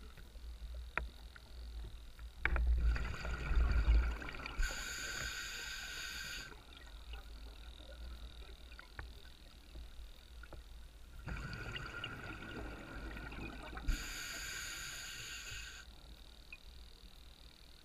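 Scuba diver breathing through a regulator underwater, heard through the camera housing: two breaths about nine seconds apart, each a rush of exhaled bubbles with a low rumble and a hiss from the regulator.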